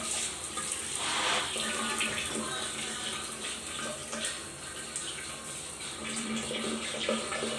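Water running steadily from a faucet, with a brief louder surge about a second in.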